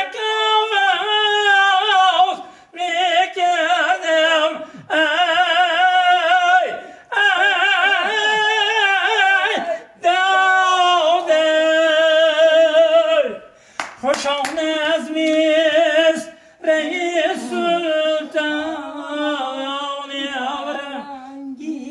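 A man singing a Tajik song unaccompanied, with strong vibrato, in phrases of two to three seconds broken by short breaths.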